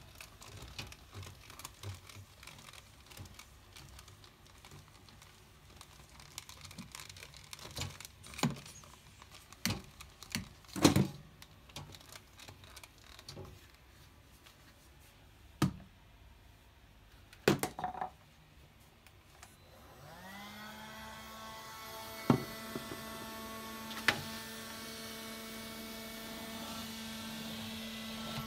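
Knocks and clicks of the Electrolux Well S7 being handled, several of them sharp. About two-thirds of the way through, its electric motor switches on, its pitch climbing as it spins up, then runs steadily with a hum and a whine above it.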